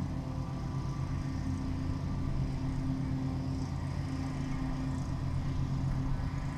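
Honey bees buzzing over an open hive: a steady low hum that swells and fades slightly.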